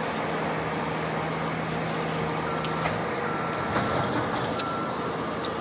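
Truck-mounted boom crane's engine running steadily while it hoists a roof panel. A low hum drops away about halfway through, and a repeating electronic warning beep starts up, sounding in short pulses about twice a second.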